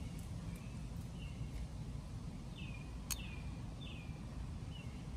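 Small birds chirping in the background: short, falling chirps repeating every half second to a second, over a steady low outdoor rumble, with one sharp click about three seconds in.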